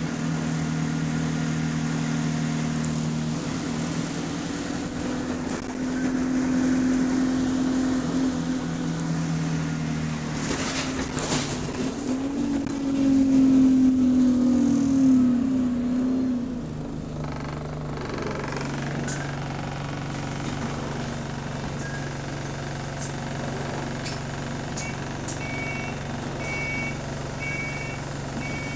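Engine of an Alexander Dennis Enviro200 single-deck bus heard from inside the saloon, its note shifting as the bus drives, rising and loudest about halfway through, then settling to a steady lower note for the last ten seconds or so. A short, repeated electronic beep sounds near the end.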